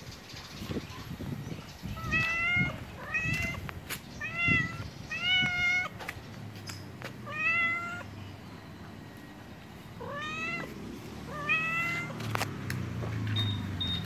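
Domestic orange tabby cat, a nursing mother, meowing about seven times: short calls a second or so apart, with a pause of about two seconds near the middle. The owner takes her meowing as a call to follow her to her kittens.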